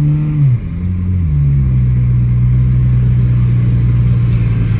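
2001 Toyota Corolla's 1.8-litre four-cylinder engine pulling away under acceleration. The engine pitch drops sharply twice in the first second or so as the car shifts up, then holds steady at cruising revs. The owner says the car has an exhaust leak.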